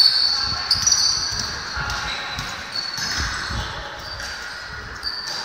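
Basketball play on a court: sneakers squeaking in short high chirps and the ball thudding on the floor, over the voices of players and spectators.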